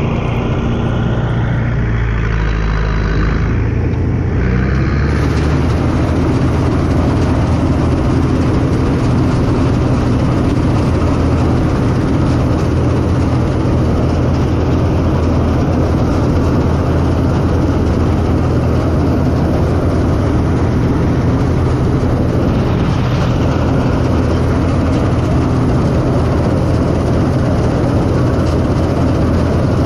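CLAAS Mercator 50 combine harvester running at work harvesting wheat, its engine and threshing machinery making a loud, steady mechanical din heard from the open operator's platform. The engine note rises about four to five seconds in, then holds steady.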